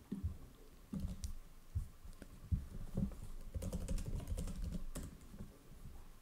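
Keystrokes on a computer keyboard, typing a terminal command: scattered taps at first, then a quicker run of keys about three and a half to five seconds in.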